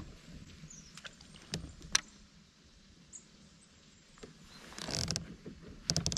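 Handling noises on a fishing kayak: a few sharp knocks and clicks, with a brief rushing sound about five seconds in and a quick run of clicks near the end.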